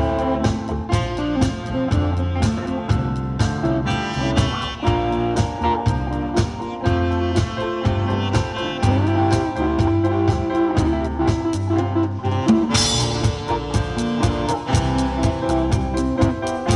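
Instrumental combo band playing live: saxophone, keyboard, electric guitar, bass and drum kit. The drums and bass keep a steady beat under held melody lines, with a cymbal crash about two-thirds of the way through.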